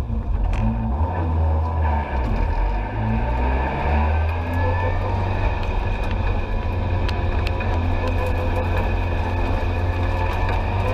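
Rally car engine heard from inside the cabin, its revs rising and falling for the first few seconds and then running steadily at low revs, with a couple of sharp clicks about seven seconds in.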